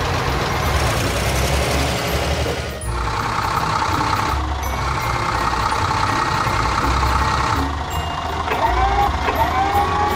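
Animated construction-machine sound effects: a low diesel engine drone throughout, with a hiss in the first few seconds and then a steady high whine for several seconds. Short rising chirps come in near the end.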